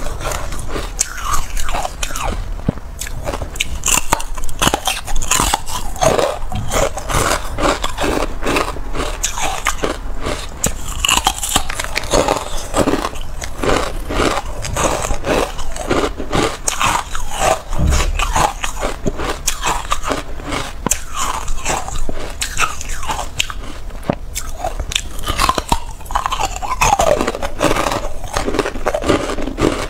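Carbonated ice being bitten and chewed close to a clip-on microphone: a continuous run of sharp cracks and crunches.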